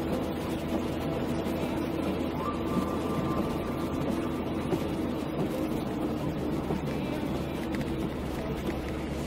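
Steady road noise inside a moving car on a wet road: tyres on wet asphalt and the engine's low drone, with no sharp events.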